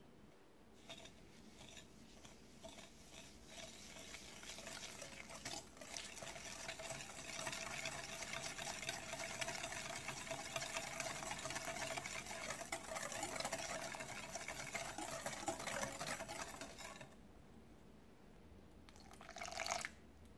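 Wire balloon whisk beating egg yolks and sugar in a glass bowl: rapid, steady whisking that starts about a second in, grows louder, and stops abruptly near the end. Then a brief pour of water into the bowl.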